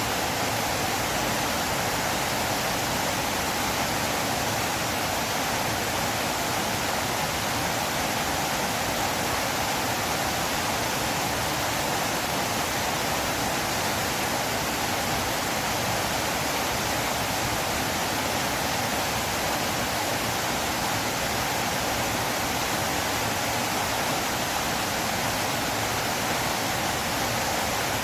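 River water flowing: a steady, unchanging rush.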